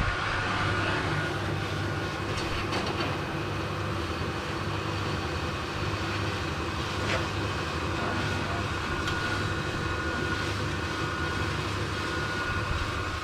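Lathe running steadily, winding a 6 mm rod around a tube into a coil spring: a continuous mechanical hum with a few light clicks.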